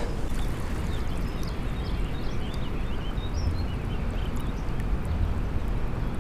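Steady rush of a flowing river with wind rumbling on the microphone, and faint high bird chirps in the first half.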